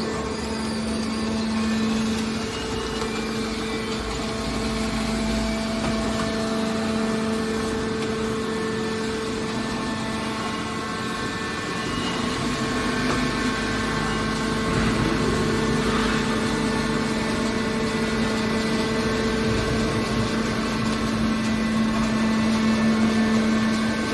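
Aluminium can baler's hydraulic power unit running, a steady machine hum with a strong low tone and higher overtones.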